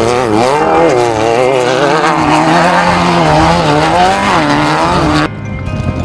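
Off-road race buggy engine revving hard, its pitch swinging quickly up and down. About five seconds in the sound cuts abruptly to a quieter engine that begins revving up.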